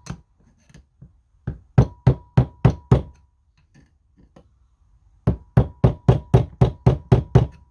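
Light, rapid tapping on a screwdriver used as a drift to drive the Tongsheng TSDZ2 motor core out of its casing: two runs of sharp taps at about four a second, the second run longer, with a faint metallic ring under them.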